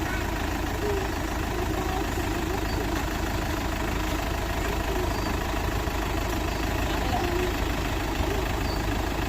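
Heavy construction-machine diesel engine running steadily, a continuous low rumble.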